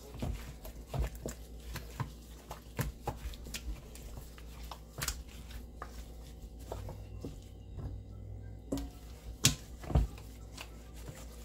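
Gloved hands working raw chicken pieces through a wet spice marinade in a stainless steel bowl: irregular wet squelches, glove rustles and light knocks against the bowl, with two sharper knocks near the end.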